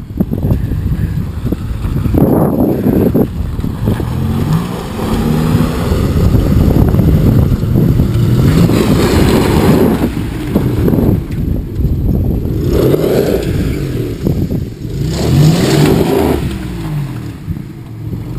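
Toyota pickup's engine revving up and down in bursts of throttle as the truck crawls over ruts and rocks, with louder surges about two, nine and fifteen seconds in.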